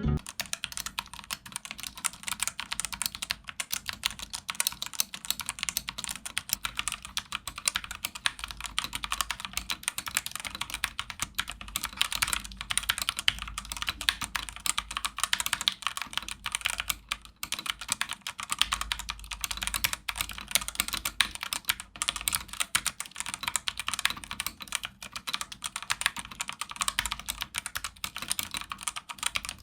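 Fast, continuous typing on a Womier WK61, a 61-key mechanical keyboard, as a sound test for its silicone dampener. The keystrokes are a dense run of clacks with no pauses.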